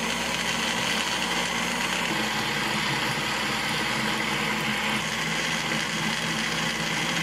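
Kenwood countertop blender running steadily at full speed, puréeing a wet mix of fried onion, yogurt, garlic and ginger into a smooth sauce.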